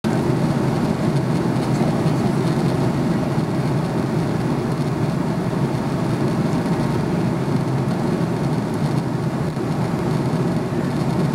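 Steady cabin noise of an Airbus A300-600 in cruise at 37,000 ft, heard inside the cabin by a window: an even rush of airflow and engine drone, deep-heavy and unchanging.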